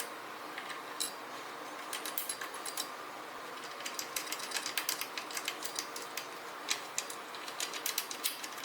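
Irregular light metallic clicks and ticks, often in quick clusters, as bolts are fitted and turned with a wrench while the handlebar is fixed to an exercise bike's handle post.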